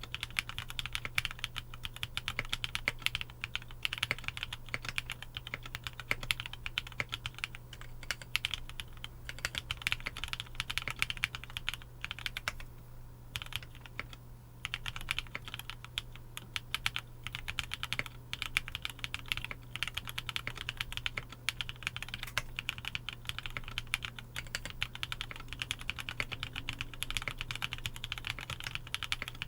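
Continuous fast typing on a GEONWORKS Frog TKL mechanical keyboard with linear 'Cherry cream' switches (Cherry MX Black stems in Kailh Cream housings): a dense run of rapid keystrokes, broken by a couple of short pauses about halfway through, over a low steady hum.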